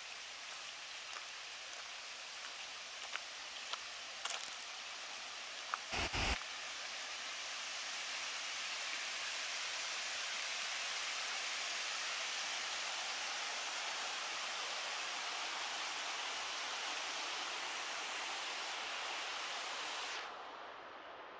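Steady rush of river water flowing over a shallow rocky bed and a weir, growing a little louder about eight seconds in. A few light clicks and one brief thump about six seconds in.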